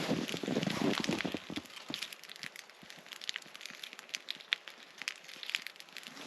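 Dense rustling and crunching for about the first two seconds, then scattered sharp crackles and clicks.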